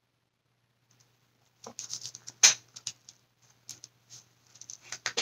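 Sharp clicks, taps and scraping from a plastic paint squeeze bottle and tools being handled and set down on a work table, starting about a second and a half in, the loudest click about halfway through, over a faint low hum.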